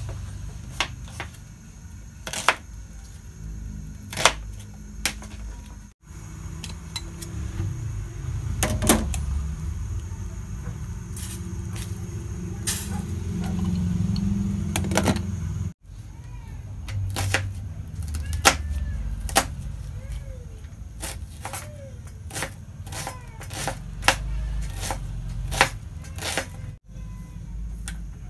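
Kitchen knife chopping a red onion on a plastic cutting board: irregular sharp taps. For several seconds in the middle, a pot of pork ribs on the stove makes a low steady rumble.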